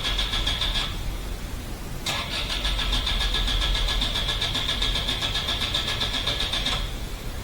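Toyota Altezza's 3S-GE four-cylinder engine being cranked by the starter motor, turning over with an even, fast chug but not catching: one attempt ends about a second in, and a second, longer crank of nearly five seconds stops short of the end. The engine fails to start, which the owner puts down to missing earth straps.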